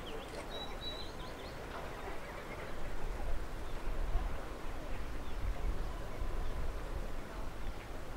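Outdoor ambience: a low, uneven rumble, heavier in the middle, with a bird chirping several times in the first second or so.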